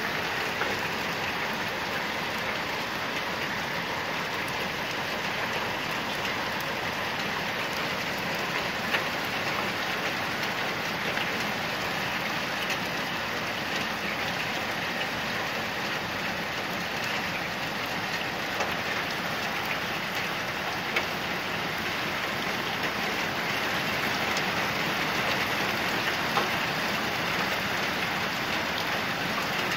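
Steady rain falling, an even hiss with now and then a louder single drop striking close by.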